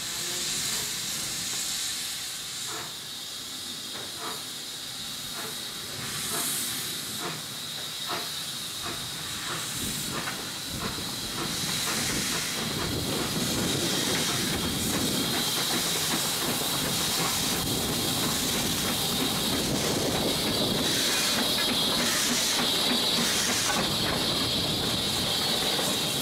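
Two 0-6-0 saddle-tank steam locomotives, a Hunslet Austerity and a Hudswell Clarke, working a double-headed train. Steam hisses steadily over exhaust beats that come quicker through the first ten seconds. After that the sound grows louder and fuller as the train draws closer.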